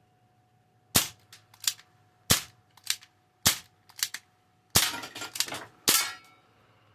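Barra 1858 CO2 air revolver firing five shots about a second and a quarter apart, each a sharp pop followed by a few lighter clicks.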